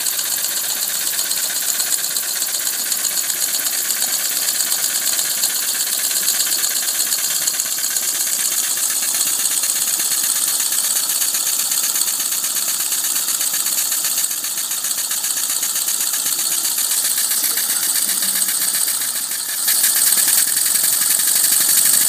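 3D-printed ABS oscillating-cylinder engine running fast on compressed air: a rapid, even stream of hissing puffs as air exhausts from the cylinder on each stroke. It gets louder near the end.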